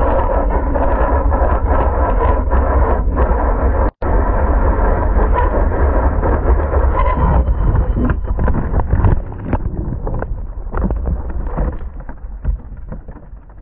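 Heavy wind noise over a camera mounted on a BMW S1000RR superbike's tank at very high speed, with the inline-four engine's note underneath. About seven to eight seconds in the bike goes down: a string of irregular knocks and scrapes follows as it slides, dying away toward the end.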